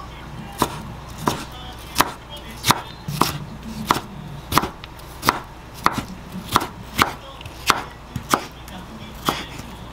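Chef's knife cutting cucumber into thin strips on a wooden cutting board: a steady series of sharp knocks as the blade meets the board, about one stroke every two-thirds of a second.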